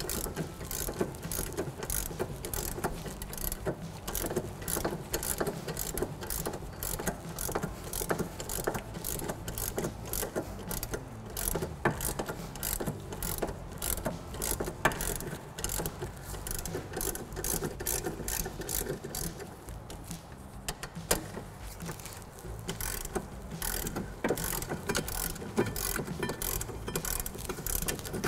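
Small hand ratchet with a 17 mm socket clicking in quick, repeated strokes as it backs out the loosened rear brake caliper bracket bolts. The clicking thins for a moment about two-thirds of the way through, then picks up again.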